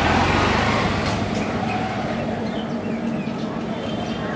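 A small engine running and fading away over about the first second, leaving a steady low hum, with a few short bird chirps near the end.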